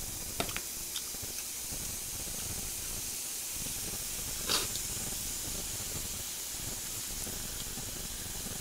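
Slices of pork belly sizzling on an electric grill pan: a steady high hiss, with a couple of light clicks in the first second and one louder short spit about four and a half seconds in.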